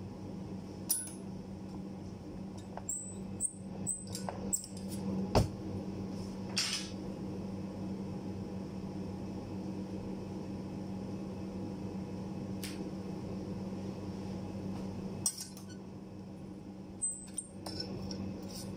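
Scattered metallic clicks, clinks and knocks of hand tools and steel cutting rule being handled at a workbench, with a sharper knock about five seconds in and another cluster of clicks near the end, over a steady low hum.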